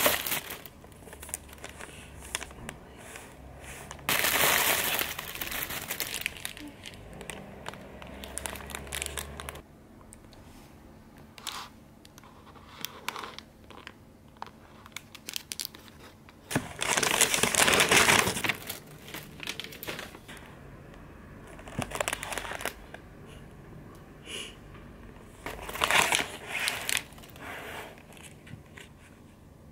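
Plastic gift bag and cellophane wrappers crinkling and rustling as they are handled and opened. It comes in several loud bursts, the biggest about four seconds in and about seventeen seconds in, with quieter rustles and small taps between.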